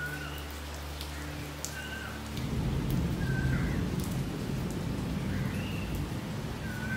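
Steady rain falling on Bodhi tree leaves, with scattered drop ticks. A low rumble of thunder sets in about two and a half seconds in and stays the loudest sound. A bird gives short chirps about every second and a half.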